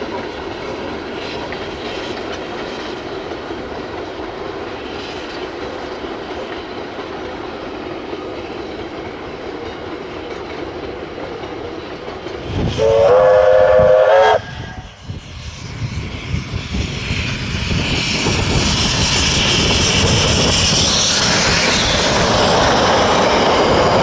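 Steam locomotive A 428 and its train running at a steady rumble, then one blast of the locomotive's steam whistle, about two seconds long, around halfway through. After it the sound grows louder as the carriages roll close past, wheels clattering on the rails.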